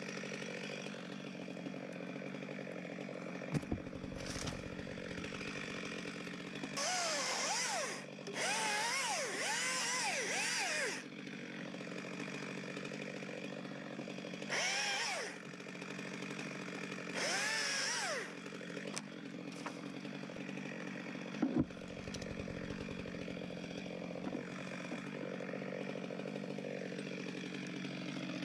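Two-stroke chainsaw idling, revved up four times in short bursts with the pitch rising and falling, the longest lasting about three seconds. A couple of short knocks come early on and again after about twenty seconds.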